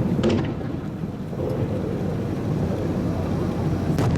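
Aerial fireworks bursting: sharp booms shortly after the start and again near the end, over a continuous low rumble of further bursts and their echoes.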